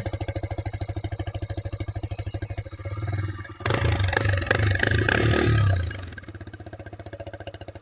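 TVS Raider 125 single-cylinder engine idling with a fast, even thud through its exhaust, which has a homemade silencer attachment fitted to make it sound like a bigger bike. About halfway through it is revved for about two seconds, louder and rougher, then drops back to idle.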